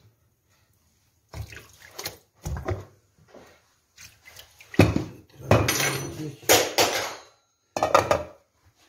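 An enamel cooking pot and its lid clattering and scraping against a stainless-steel sink as the hot pot's bottom is set in cold water to finish the steamed buns and the lid is lifted off. The handling comes as a series of irregular knocks and rattles, loudest a little past the middle.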